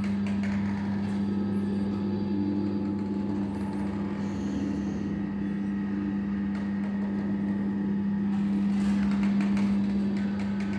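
Jean Tinguely's motor-driven kinetic sculpture 'Lola T. 180', built from race-car body panels, running: a steady electric motor hum with its metal parts clicking and rattling now and then, most densely about eight to ten seconds in.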